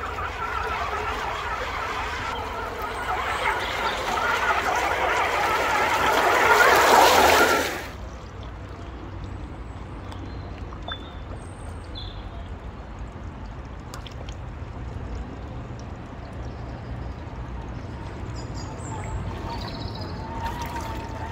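Creek water rushing and splashing around a Traxxas TRX-4 RC crawler wading through it, swelling louder until it cuts off suddenly about eight seconds in. After that the water runs on more quietly and steadily.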